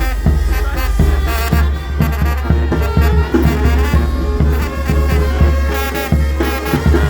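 Loud music with brass instruments over a heavy, steady bass.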